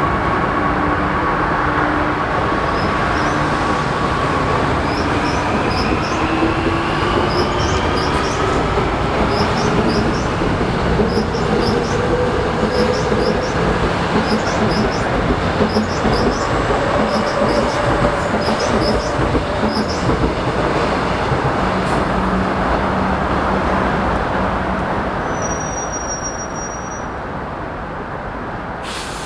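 Seoul Subway Line 2 electric train pulling away: the motor whine rises steadily in pitch as it gathers speed, over a rapid run of high wheel-on-rail clicks and squeaks. The sound fades near the end.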